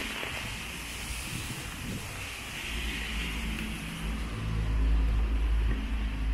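Steady hiss of rain on a wet street, with a motor vehicle drawing near: its engine rumble builds from about halfway through and is loudest near the end.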